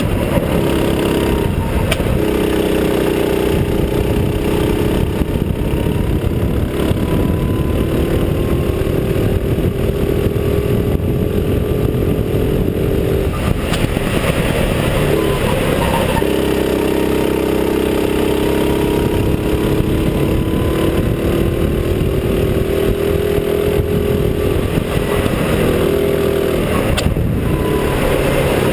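Go-kart engine heard from on board, running hard at high revs. Three times its note drops briefly and picks back up as the throttle is lifted for a corner and reapplied, over a steady rush of wind and road noise.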